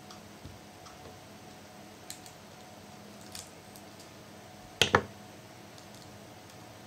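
Light scattered clicks and taps of laptop parts and tools being handled during disassembly, with one louder double knock about five seconds in.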